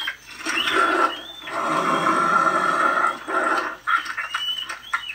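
Rick Ratman Halloween animatronic playing its monster sound effects: rough, noisy growls and screams in several long stretches with short gaps, with short high squeals over them.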